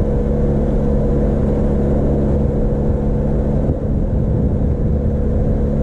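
Benelli TRK 502 X's parallel-twin engine cruising at a steady road speed, a constant drone under a heavy rush of wind and road noise.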